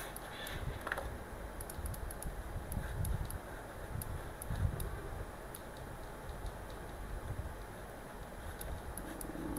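Faint, scattered computer clicks at irregular intervals, over a low, steady background rumble.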